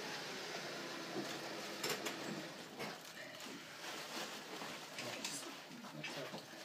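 Clicks, knocks and scraping of metal on metal as a rotisserie spit's forks and clamps are tightened on a whole pig, with a low steady hum over the first second or so.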